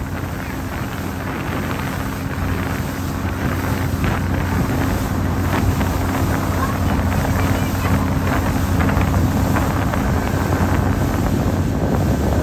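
A tour boat's engine running steadily with a low hum, with wind buffeting the microphone. The sound grows a little louder over the first few seconds, then holds steady.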